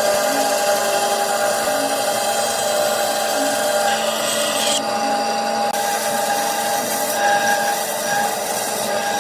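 Electric power tool running steadily on wood, a constant motor hum over the noise of cutting or sanding, with a momentary break a little past the middle.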